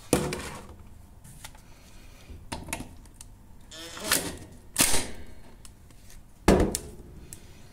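Several short bursts of rattling hammering from a Makita 18V cordless impact driver loosening the mower's oil drain plug, mixed with knocks and clatter as a plastic drain tray is set under the mower.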